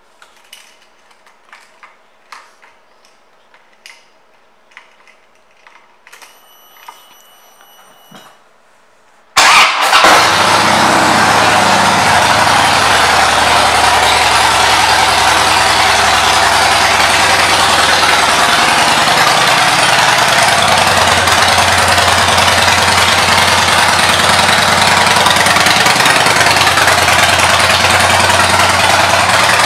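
2007 Harley-Davidson Dyna Street Bob's Twin Cam 96 V-twin, fitted with Vance & Hines pipes, starting about nine seconds in and then idling loudly and steadily. Before it starts there are only faint clicks and a brief high tone.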